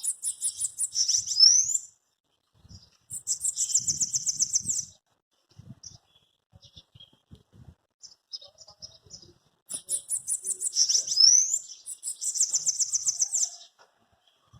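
Bananaquit (sibite) song: several bursts of rapid, very high, buzzy trills, each with a quick upward-sweeping note. Softer short chips and faint low taps come between the bursts.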